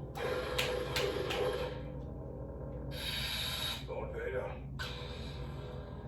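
A Proffieboard neopixel lightsaber's sound font playing through its speaker: a steady electronic hum, with several short swing or clash effects near the start and a longer surge about three seconds in.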